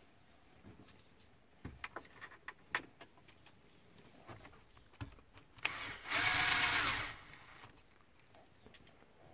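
Cordless drill-driver with a screwdriver bit, run once for about a second with a whining motor, a little past the middle. Before that, scattered light clicks and taps of the bit and hands against the plastic fuse panel.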